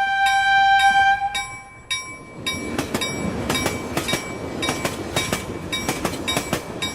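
A train horn sounds one steady held note for about the first two seconds. A train then runs on, its wheels clattering over the rail joints.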